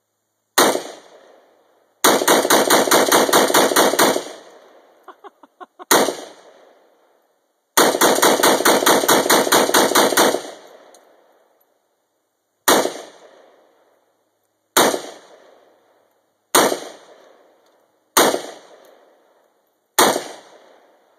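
An I.O. AK-47 rifle in 7.62×39mm firing. It fires a single shot, then a fast string of about a dozen shots, another single shot and a second fast string. Five slow single shots follow about two seconds apart, each trailing off in a short echo.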